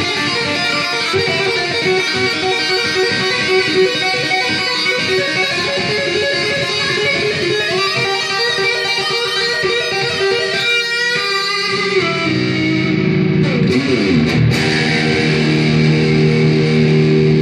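Electric guitar (a Kramer 5150 Baretta replica with a Seymour Duncan JB pickup) played through a Marshall VS265 Valvestate amp with reverb: a fast run of notes for about twelve seconds, then a note slides down in pitch and held notes ring out.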